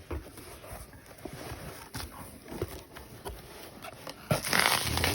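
A package being opened and handled by hand: scattered small taps and rustles, then a louder stretch of packaging rustling starting about four seconds in.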